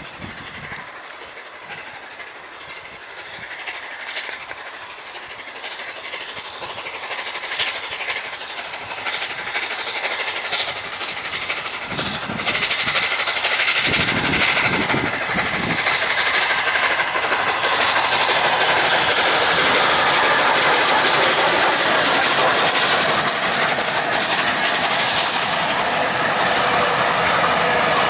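Steam locomotive Flying Scotsman, a Gresley A3 Pacific, approaching under steam with its train, growing steadily louder. Knocks and clicks come through as it nears, then its coaches rolling past close by in a steady, loud rumble and hiss.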